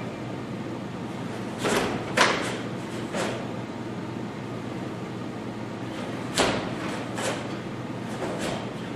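Sharp snaps and thuds of karate movement: gi sleeves snapping and bare feet stepping and stamping on the floor as two children work through the kata Tekki Shodan, about seven strokes spread irregularly over a steady low hum.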